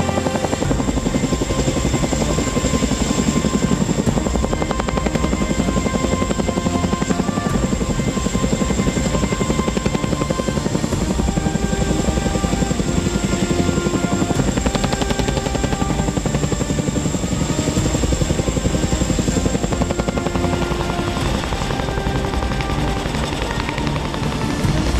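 Boeing CH-47 Chinook tandem-rotor helicopter running, its rotors beating in a fast, steady chop, with background music mixed over it.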